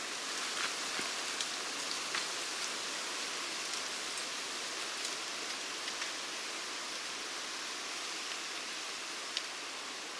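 A steady high hiss of outdoor background noise in woodland, with a few faint ticks scattered through it.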